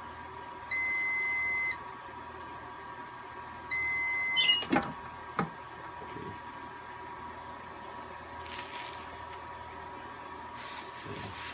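Heat press timer beeping twice, each beep about a second long, signalling the end of the set pressing time. The clamshell press is then released with a sharp clack and a second knock as the upper platen is lifted.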